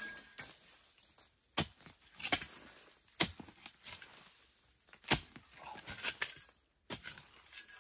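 A long wooden digging pole jabbed and pried into the ground to dig out a bamboo rat, giving five sharp knocks a second or two apart, with dry leaves and stems rustling between them.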